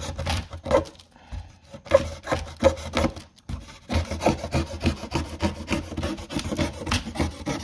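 A blunt restored steel knife sawing down the corner of a corrugated cardboard box: quick back-and-forth rasping strokes, with a short pause about three and a half seconds in.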